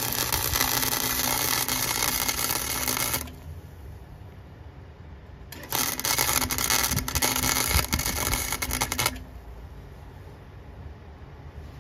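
Harbor Freight flux-core wire-feed welder running two welds on a steel chute, each about three and a half seconds long: the arc crackling hard with a steady hum underneath. Each weld stops suddenly, and the second starts about two seconds after the first ends.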